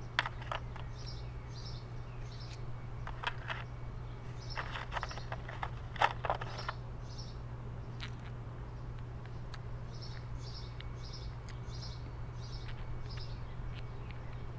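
Scattered light clicks and knocks as motorcycle phone-mount parts are handled and fitted, with a cluster about five to six and a half seconds in, loudest around six seconds, over a steady low hum. A bird chirps repeatedly in short runs of quick calls.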